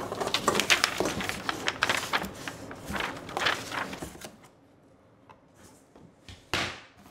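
Paper and cardboard rustling with light clatter as an instruction sheet and a wire rack shelf are handled and lifted out of a cardboard box, busy for the first few seconds, then quieter, with one short swish near the end.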